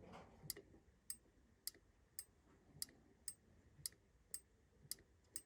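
Goodman furnace pressure switch clicking faintly, about ten sharp clicks at roughly two a second, as air is blown and sucked through its hose and the diaphragm snaps the contacts open and shut. A clicking switch like this is working, so it is not what is keeping the furnace down.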